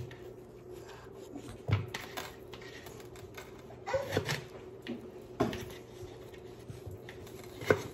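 Knife cutting raw potatoes into sticks on a plastic cutting board: about six separate knocks at irregular intervals of one to two seconds, over a steady low hum.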